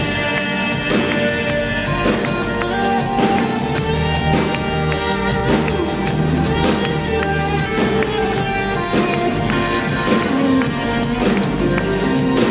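Instrumental passage of a band playing a ballad: drums keep a steady beat under sustained guitar and other instrument parts, with no singing.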